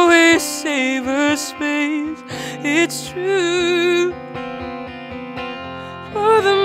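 Music: a woman singing over acoustic guitar. The voice drops out about four seconds in, leaving the guitar alone for a couple of seconds, and the singing comes back near the end.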